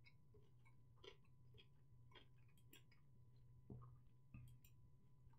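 Near silence: a low steady hum with a few faint, irregular clicks.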